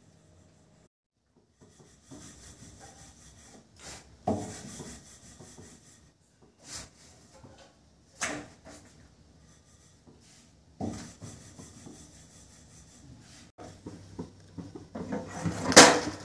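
Wooden rolling pin rubbing and rolling roti dough on a board, broken by separate knocks and a louder clatter of pan and utensils on the gas stove near the end.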